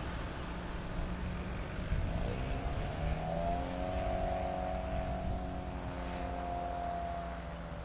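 An engine droning past, its pitch rising about two seconds in, holding steady, then fading near the end, over a low rumble.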